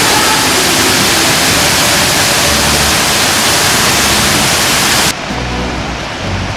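Waterfall rushing: a loud, even hiss of falling water that cuts off abruptly about five seconds in, giving way to a quieter, lower rush of water.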